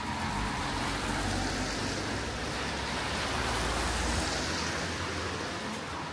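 A motor vehicle driving past on a wet street: a low engine rumble and tyre hiss that build for about four seconds and then fade.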